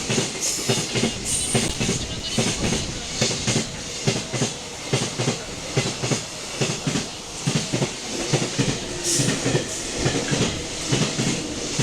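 Freight train hauled by a JR Freight EF200 electric locomotive passing through a station without stopping: its wagons' wheels clatter over rail joints in a rapid, even clickety-clack of about three knocks a second over steady rolling noise.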